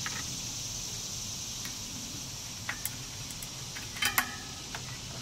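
A few sharp clicks, then a short clattering rattle with a brief metallic ring about four seconds in: the wheel strap and clamp of a hitch bike rack being worked around a road bike's rear wheel. A steady high hiss runs underneath.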